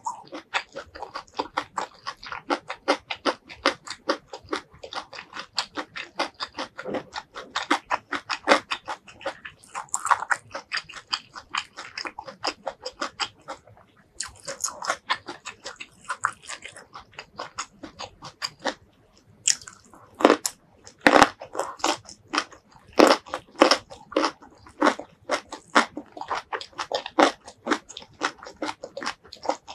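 Close-miked ASMR chewing and crunching of chili-coated stir-fried vegetables, including a broccoli floret: quick crisp crunches one after another. There is a short lull about halfway through, and the loudest bites come in the last third.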